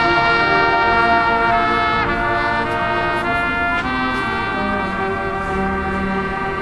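Marching band brass section playing sustained chords, with trumpets on top and lower brass underneath; the harmony shifts a couple of times and a lower bass note enters near the end.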